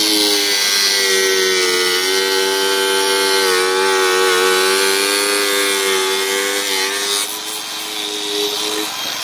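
Mini angle grinder with a zip-cut wheel cutting through a vinyl fence post: a steady motor whine under a harsh cutting hiss, its pitch dipping slightly as the blade bites. The cutting noise lightens about seven seconds in, and the grinder cuts off shortly before the end.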